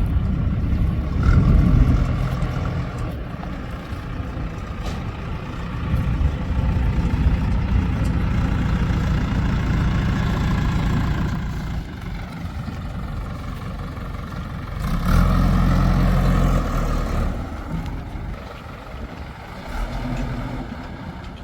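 Diesel engine of a JCB backhoe loader running as it digs and loads mud, revving up in several surges and easing back in between.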